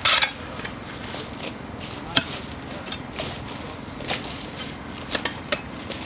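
Long-handled shovel scraping and chopping into the ground among dry dead reeds: a loud scrape at the start, then several sharp, separate knocks of the blade striking the ground.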